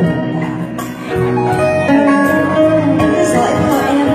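Live band music: acoustic guitar and electric keyboard playing a slow Vietnamese ballad, with a light, steady percussion beat.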